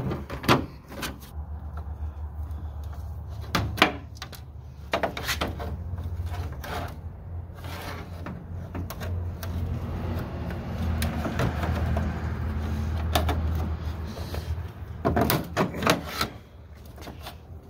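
Hand tools working plastic push-pin clips and trim in a pickup's headlight opening: scattered clicks, knocks and scraping of metal on plastic, over a steady low hum.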